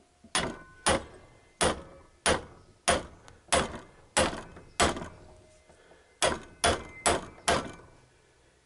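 Hammer blows on metal, about a dozen sharp strikes each with a short ring, in two runs with a pause in the middle. They are struck at a seized fastener on the Yamaha XJ900S's alternator that will not budge.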